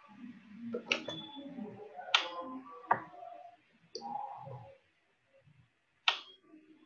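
Several sharp, separate clicks, about one a second early on and another about six seconds in, over faint, indistinct voices.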